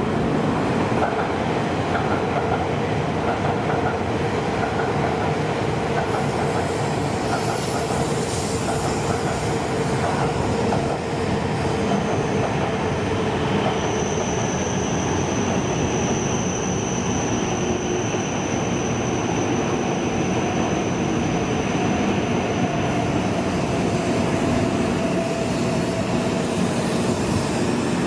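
Tohoku Shinkansen train running along the platform: a steady rumble, with a thin high whine that sets in about halfway through and holds.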